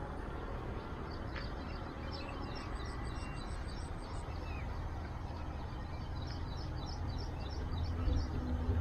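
Low, rumbling outdoor noise that grows stronger near the end, with small birds chirping in short twittering runs.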